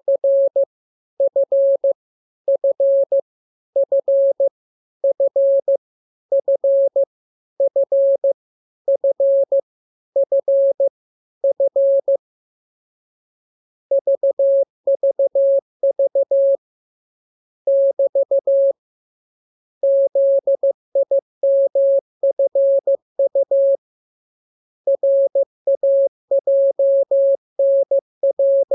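Morse code (CW) sent as a single steady beeping tone, keyed in dots and dashes. One short character group repeats about ten times, evenly spaced, over the first twelve seconds. After a pause, longer runs of different characters follow.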